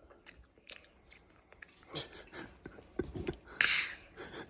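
A child chewing a piece of fast-food chicken close to the microphone: scattered small wet clicks and smacks, with a short hissy breath-like noise about three and a half seconds in.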